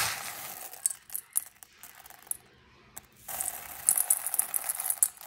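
Dry split dal (toor, chana and moong lentils) stirred and let fall by hand into a metal bowl: a rattle of many small hard grains. It is dense at first, thins to scattered clicks, stops briefly about three seconds in, then picks up again as a handful is dropped.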